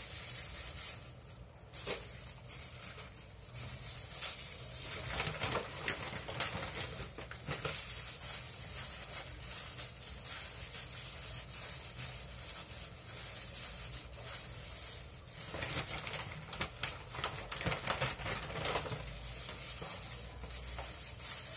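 Gloved hands tearing and shredding cooked chicken off the bone, with plastic rustling and small irregular clicks and taps against a bowl, over a low steady hum.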